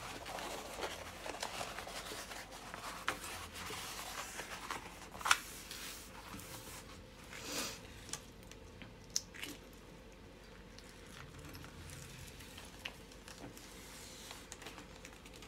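Rolled diamond-painting canvas being unrolled and pressed flat by hand on a table: crinkling and rustling of the canvas and its plastic cover film, busiest in the first few seconds, with a few sharp clicks and taps.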